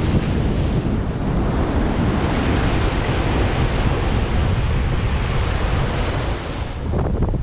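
Rough sea surf breaking and washing up a sandy beach, with strong gusting wind buffeting the microphone as a deep rumble. The hiss of the surf drops away near the end.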